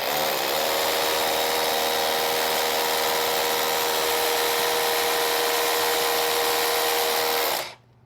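Milwaukee hammer drill with its dust-collector attachment running, a steady whine over a hiss. It picks up speed in the first half second and stops suddenly near the end.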